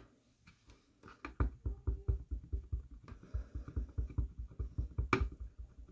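Clear acrylic-block rubber stamp tapped rapidly onto a Versamark ink pad to ink it: a quick run of soft low thumps, about seven a second, with one sharper click near the end.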